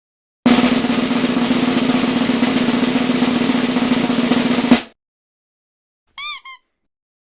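Snare drum roll lasting about four seconds, dense rapid strokes ending in a single accented hit. About a second and a half later come two short high chirps that rise and fall in pitch.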